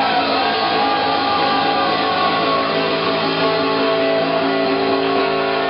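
Live rock band playing loud, with guitars holding a sustained chord that rings steadily.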